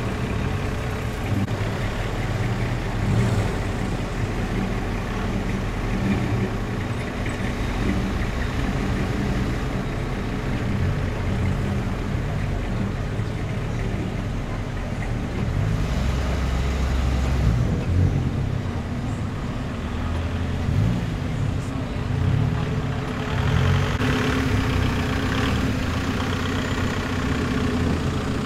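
Car engines running at low speed as a line of cars, classic V8s among them, rolls slowly past one after another, a steady low engine sound that swells and fades as each car goes by.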